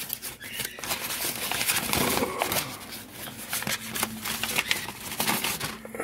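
Crinkling, rustling and light clicks of small packaging being handled and opened by hand: a container of one-gram silver mini bars.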